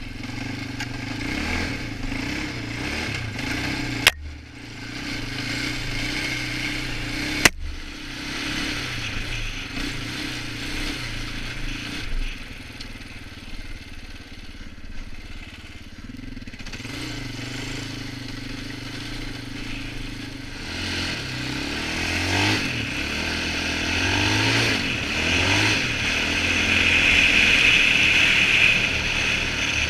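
Polaris Outlaw 525 ATV's KTM-built single-cylinder four-stroke engine running as the quad is ridden over snow, its note rising and falling with the throttle. There are two sharp knocks in the first eight seconds. In the second half the engine revs up again and again as it accelerates, and it is loudest near the end.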